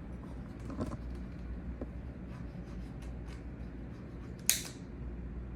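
A lighter being clicked: a few faint clicks, with one louder, sharper click and a brief hiss about four and a half seconds in.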